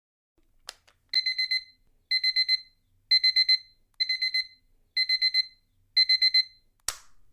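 Digital alarm clock beeping: six quick groups of four high beeps, about one group a second. A short sharp noise follows near the end as the beeping stops.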